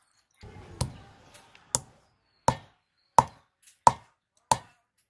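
Wooden pestle pounding cumin seeds on a grooved stone grinding slab, six sharp knocks at an even pace of about one every 0.7 s. A short rustle of a paper packet comes just before and around the first knock.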